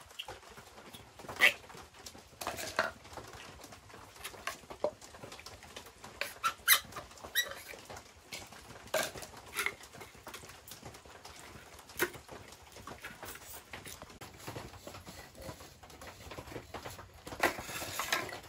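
Irregular light taps and clicks, a few every second or two, some with a brief ring, followed near the end by a short stretch of scraping or rustling.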